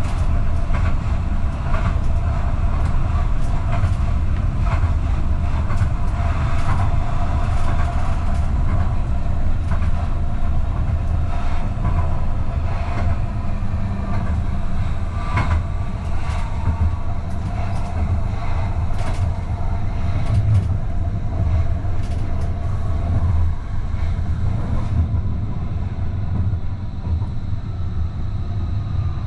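AVG Stadtbahn tram-train running along the track, heard from the driver's cab: a steady rumble of wheels on rail with a steady tone under it and scattered clicks from the rails. About four seconds before the end it quietens a little as the train slows into a station.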